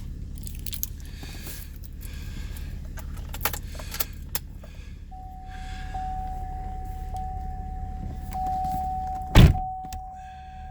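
Car door of a 2012 Chevrolet Camaro shut with one loud thump about nine seconds in, after a few light clicks. A steady electronic warning chime tone from the car sounds from about halfway through, over a low steady hum.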